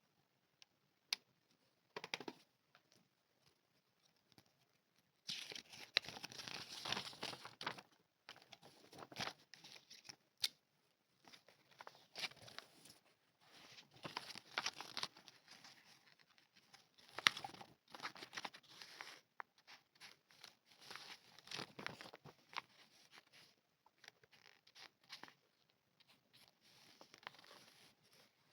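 Plastic packaging being torn open and crinkled by hand in repeated bouts, with small sharp clicks and taps in between.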